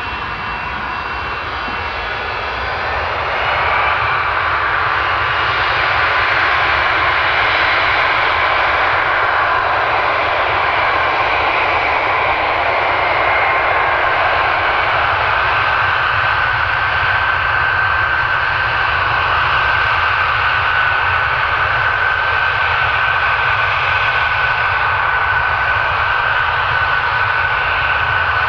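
Antonov An-124's four Progress D-18T turbofan engines running, a deep rumble with several steady high whines on top. The sound grows louder about three seconds in, then holds steady.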